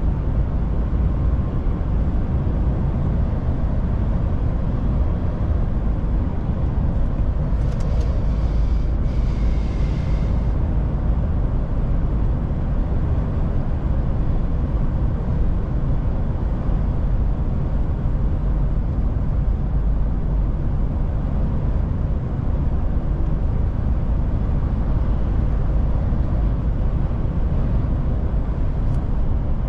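Steady low rumble of a DAF diesel truck driving at an even pace: engine and road noise. A brief hiss rises over it about eight seconds in and fades a couple of seconds later.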